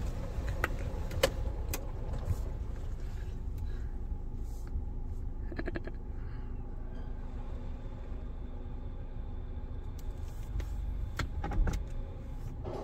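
Pre-wet stage of an OPW PDQ ProTouch tandem car wash heard from inside the car's cabin: a steady low rumble from the wash machinery and the car, with scattered taps of water spraying and dripping on the windshield and roof.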